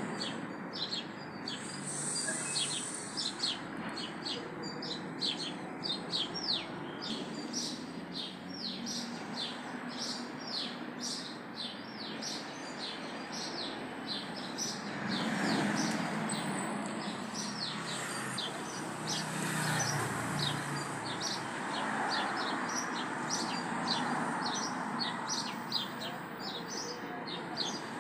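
Birds chirping: a steady stream of short, quick, downward-sliding chirps, two or three a second, over a continuous background hum that swells a little about halfway through.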